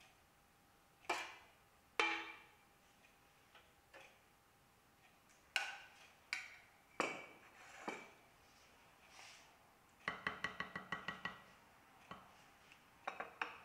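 Metal spoon clinking against a metal saucepan and a stainless steel baking dish while spooning out white sauce. There are single light ringing clicks, then about ten seconds in a quick run of about ten taps.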